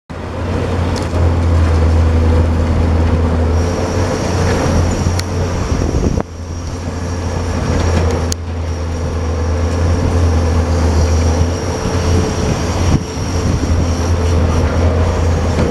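High-reach demolition excavator working: its diesel engine runs steadily under load with a low drone and a high steady whine, and loudness dips and swells as the machine works. A couple of sharp cracks stand out, about five and eight seconds in.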